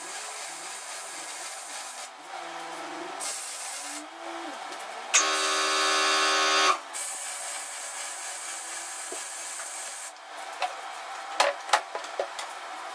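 Electric arc welding on a steel axle housing: the arc crackling in runs with short pauses, and a louder buzzing stretch of about a second and a half near the middle. Near the end, a few sharp metallic clicks and knocks.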